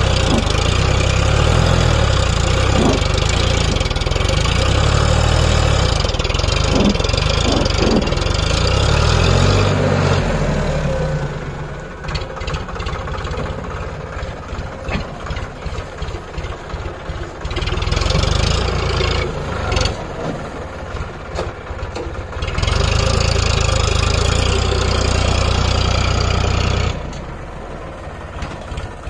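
Diesel tractor engine running hard, then dropping about a third of the way in to a quieter, uneven chugging with separate pulses. Past the middle it revs loud again for a few seconds, then falls back near the end.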